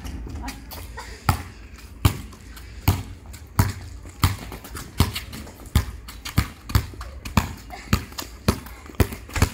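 A basketball dribbled on concrete, bouncing in a steady rhythm of about one and a half bounces a second that quickens a little near the end.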